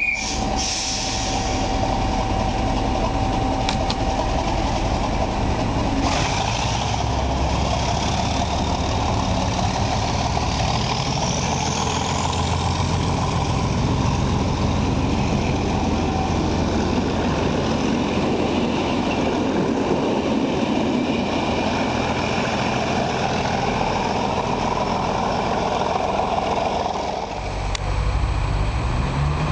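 Diesel train running with a steady engine note; near the end the engine note climbs.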